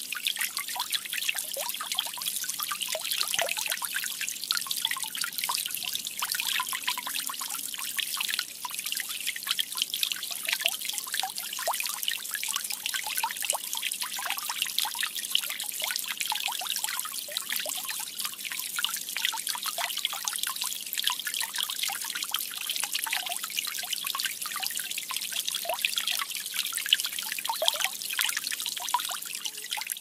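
A small homemade tabletop water fountain trickling steadily, with water dribbling from tubes into plastic cups and a glass bowl in a constant patter of small drips and splashes.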